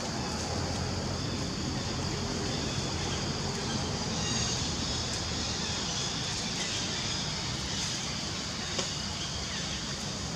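Steady outdoor background noise, an even rush with a high steady hiss over it, and one sharp click about nine seconds in.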